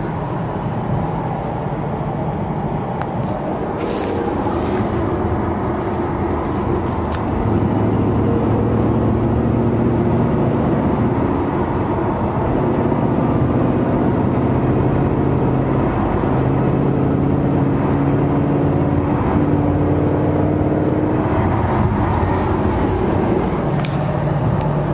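Ford Mustang GT 5.0 V8 pulling in sixth gear at low revs under moderate throttle, with a steady exhaust drone that slowly climbs in pitch as speed rises. Over it comes a rattle that shows up under this light uphill load, which the owner cannot trace.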